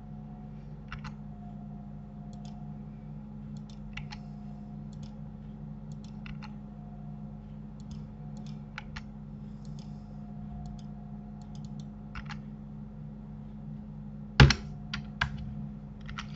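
Sparse clicks of a computer keyboard and mouse over a steady low hum, from shortcut keys and selections made while editing a 3D mesh. One sharper, louder click comes about fourteen seconds in, followed by two lighter ones.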